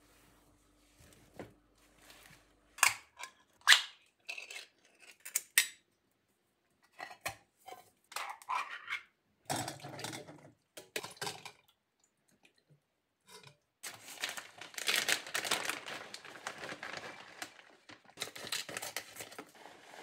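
Kitchen food-prep handling: a few sharp clicks and knocks of dishes and metal strainers, then longer stretches of scraping and rustling as toppings are handled.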